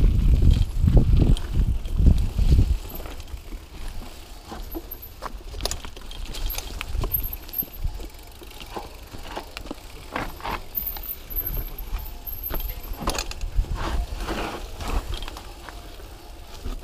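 Mountain bike riding a rocky forest singletrack: a heavy low rumble for the first few seconds, then the bike rattling and knocking over rocks and roots in quick irregular clatters.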